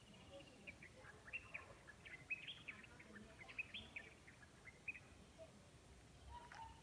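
Faint, rapid bird chirping: a quick run of short high chirps and twitters from about a second in to about five seconds, with a single call near the end.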